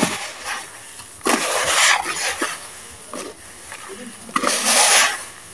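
Hands squeezing and crumbling damp sand clumps in a bowl: two gritty crunching bursts, one about a second in and one near the end, with small crackles and clicks between them.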